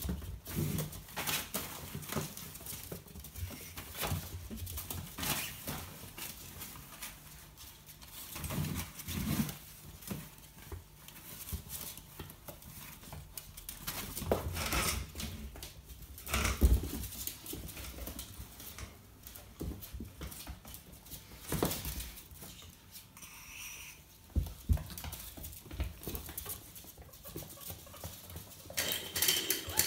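Two ferrets play-fighting and scampering on a tiled floor: claws skittering and pattering on the tiles, with irregular knocks and a few heavier bumps as they tumble.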